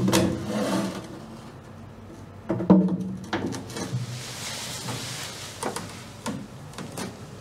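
Light knocks and handling sounds of a fiberglass channel being pressed down into a putty-filled trough, a few sharp taps coming close together near the end, with two short spells of a low pitched sound near the start and about three seconds in.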